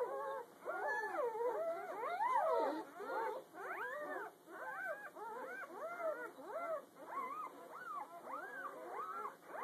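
A litter of newborn puppies, less than a day old, squealing and whining: many short cries that rise and fall in pitch, several pups at once, overlapping a few times a second.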